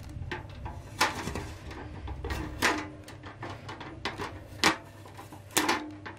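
Blue shipping tape being pulled off the shutter louvres of a Panasonic FV-40AFU exhaust fan: a string of sharp clicks and taps as the louvres are handled, about a dozen over a few seconds.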